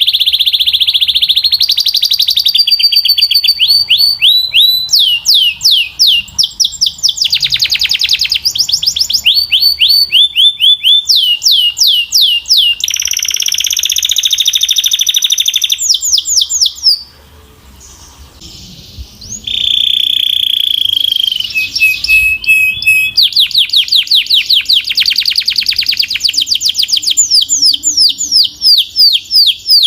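Domestic canary singing loudly: long, fast trills of rapidly repeated chirp notes alternating with held whistling tones, with a brief pause a little past halfway.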